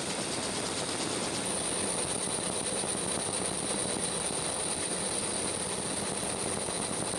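Steady helicopter engine and rotor noise heard from aboard the aircraft: an even rushing with a thin high whine running through it.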